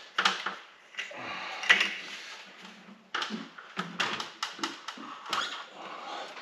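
A plastic 5-gallon coolant pail handled and hoisted: irregular clicks and knocks from the pail, its handle and spout. Near the end the coolant starts pouring into the truck's cooling system.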